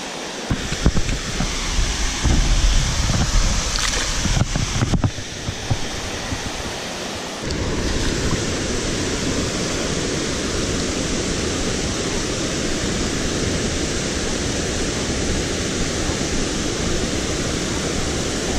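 Steady rushing of water pouring over a low dam. Gusty wind rumble on the microphone and a few knocks run through the first seven seconds or so; after that the rush is even and unbroken.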